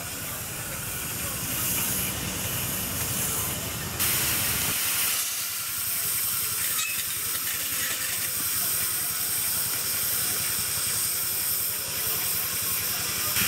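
Steam hissing steadily from a miniature-gauge steam locomotive, over a low rumble for the first few seconds; about four seconds in the rumble stops and the hiss turns louder and sharper.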